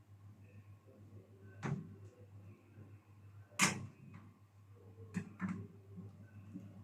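A few sharp knocks and clacks of hard objects being handled, the loudest about three and a half seconds in and a quick pair near the end, over a low steady hum.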